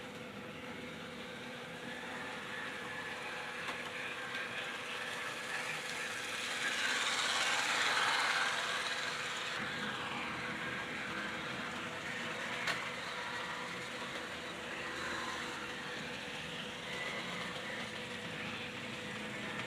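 A freshly repaired Tyco shark-nose model train locomotive runs on the track with a steady motor whir and wheel rattle. The whir grows louder for a couple of seconds around the middle, and there is a single sharp click about two-thirds of the way through.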